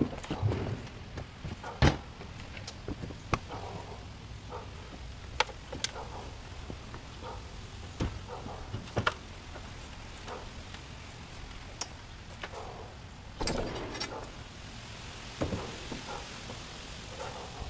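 Scattered clicks, knocks and light rattles of hand tools being handled and a stepladder being climbed, with no power tool running.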